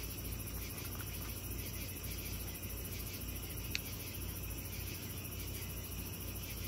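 Steady chorus of crickets or similar night insects chirring, with one short click just under four seconds in.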